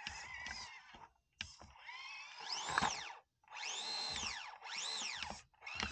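SCX24 micro RC crawler's small electric motor and gear drive whining in about four throttle bursts, the pitch climbing high and dropping back each time.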